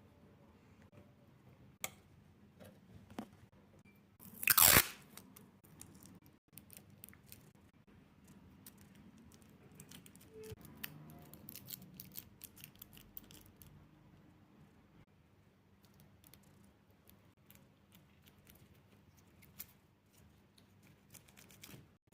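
Crinkling, crackling and small clicks from handling craft materials while making a squishy balloon, with one loud half-second rush about four and a half seconds in.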